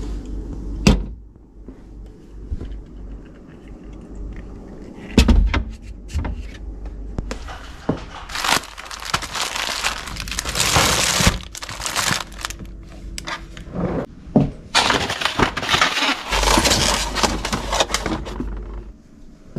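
Groceries being put away in a refrigerator and freezer: a few sharp knocks as items are set down on shelves and in the door, and two long stretches of plastic packaging crinkling and rustling.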